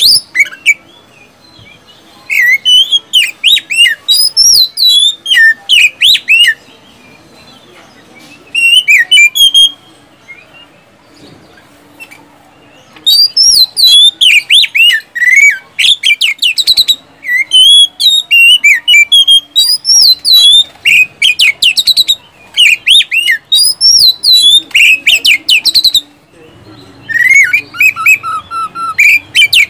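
Oriental magpie-robin singing loudly: rapid runs of sweeping whistles and sharp, quick-fire notes, delivered in bursts of a few seconds to over ten seconds with short pauses between them.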